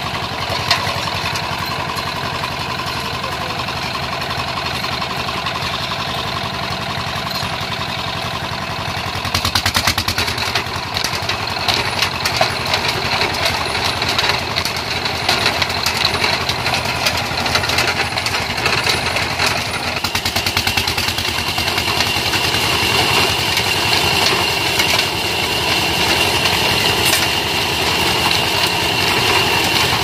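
Old stationary diesel engine with a heavy flywheel running with a steady, rapid beat; it gets louder about nine seconds in.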